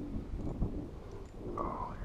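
Wind buffeting the microphone over choppy water, with irregular low knocks of small waves slapping against the boat's hull. A brief higher tone comes in near the end.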